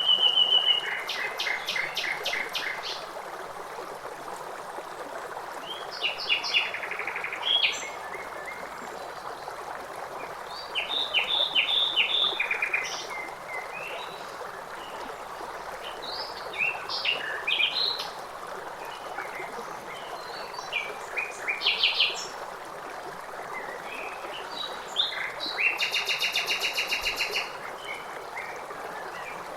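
Songbirds singing in short phrases every few seconds, including rapid trills, over the steady rush of running water.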